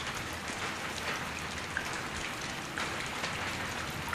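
Steady rain falling, with individual drops spattering and ticking on surfaces.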